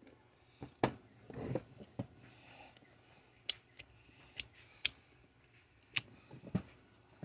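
Metal parts of a partly dismantled chainsaw engine being handled and shifted on a workbench: about a dozen sharp clicks and knocks, the loudest about a second in, with a short scrape around a second and a half in.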